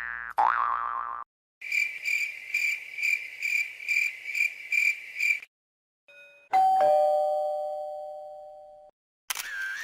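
A string of separate editing sound effects: the end of a springy effect with quick rising pitch sweeps, then a high electronic ring pulsing about twice a second for about four seconds, then a struck chime with two tones that rings out and fades over about two seconds.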